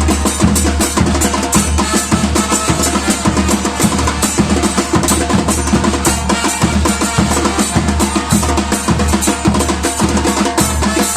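Batucada drum ensemble playing a steady groove: deep bass drum strokes under dense snare and higher drum hits.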